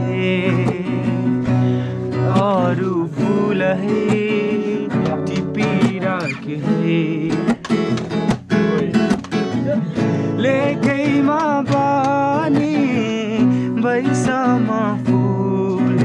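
A man singing while strumming chords on an acoustic guitar, his held notes wavering over the repeated strums.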